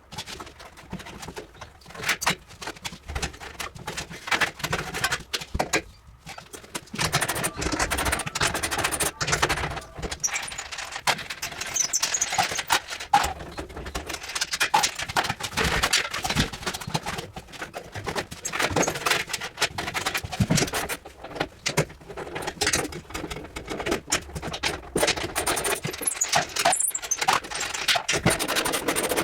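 Irregular metal clinks, knocks and scrapes of hand tools and metal parts being worked, as a refrigeration indoor unit is taken apart.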